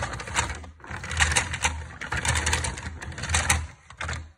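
Plastic clattering and rattling from a toy train playset right by the microphone, with a low hum beneath and sharp clicks, in uneven surges about once a second. It cuts off abruptly shortly before the end.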